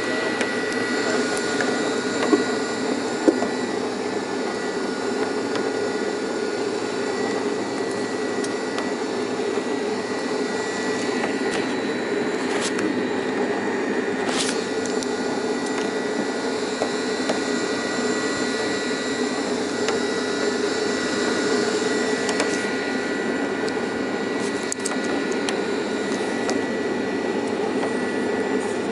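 Cable lift's machinery running with a steady drone and a thin high whine as the open gondola travels the volcano's shaft. Two sharp knocks about two and three seconds in.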